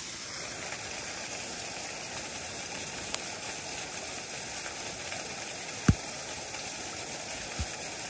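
Steady rush of a waterfall, with a faint click about three seconds in and a short dull thump about six seconds in, then a softer one near the end.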